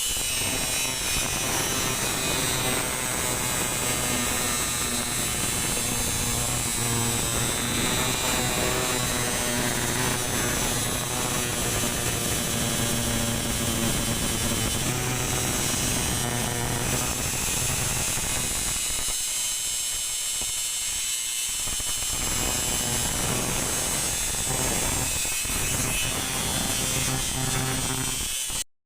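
Cicadas buzzing in a steady, dense high-pitched drone, with a lower hum underneath that drops out for a couple of seconds about twenty seconds in.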